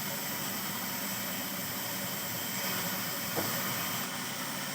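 Steady mechanical running noise, with a single brief click about three and a half seconds in.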